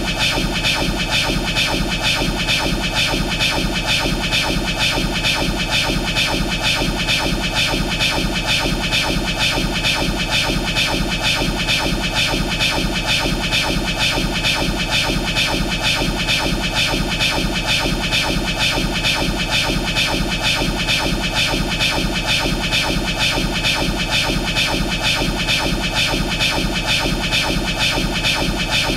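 Looped anime sound effect of Law's 'Room' power: a steady, dense electronic hiss and hum with a fast, even flutter, unchanging throughout.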